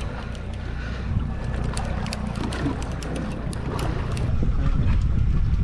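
Wind buffeting the microphone over water lapping against a small boat's hull, with scattered light ticks throughout; the rumble grows a little louder about four seconds in.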